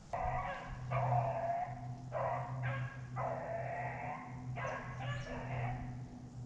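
Hunting beagle baying: a string of about seven drawn-out, pitched barks in close succession, each half a second to over a second long.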